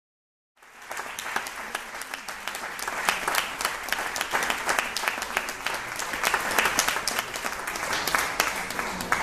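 Audience applauding: a dense, steady patter of many hands clapping that starts suddenly about half a second in.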